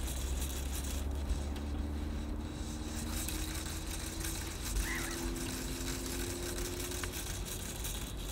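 Low, steady engine hum whose pitch creeps slightly upward, over a low rumble, with one faint crow caw about five seconds in.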